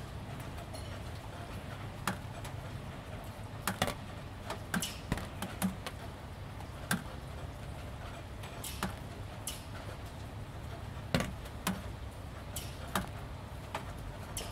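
Water drops from a gentle drizzle tapping irregularly onto wet corrugated roof panels: single sharp ticks, sometimes two or three close together, over a steady low background.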